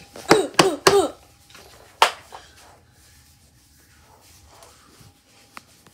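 Three short pitched vocal cries from a person in the first second, then a single sharp knock about two seconds in, with toys being handled; after that only a faint steady hum and a small click near the end.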